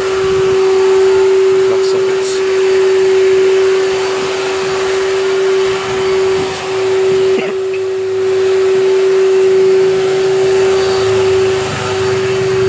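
A motor running steadily, with one unbroken hum and a rushing noise over it.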